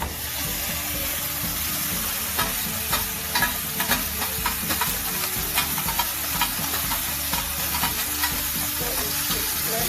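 Marinated chicken breast frying in olive oil in a pan, a steady sizzle that starts suddenly as it goes in. A run of sharp crackles and ticks comes through the middle.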